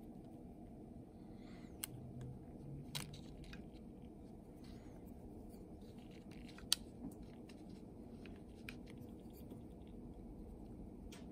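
Faint taps and clicks of a small compass being set down on paper and a pencil marking dots beside it, the sharpest click about six and a half seconds in, over a low steady background hiss.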